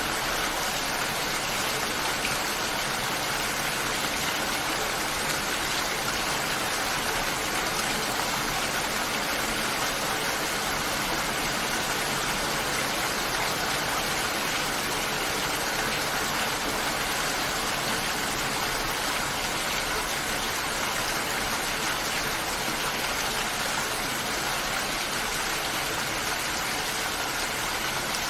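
Steady rain falling, an even unbroken hiss with no single drops standing out.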